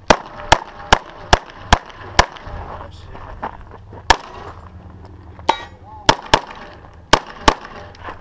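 Pistol shots fired in a timed defensive-pistol stage. Six quick shots come about 0.4 s apart, then one single shot about four seconds in, then two fast pairs about six and seven seconds in.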